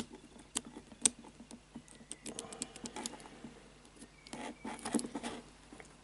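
Small metal clicks from the number wheels of an Abus 3406C combination cable lock being turned and probed by fingertip while decoding the combination: a few single clicks, then a quick run of fine clicks, then scratchy handling of the lock body.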